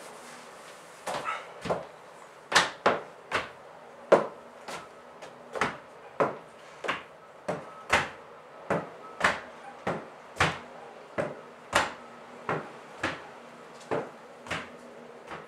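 Steady hammering, sharp hammer blows about two a second at an even pace.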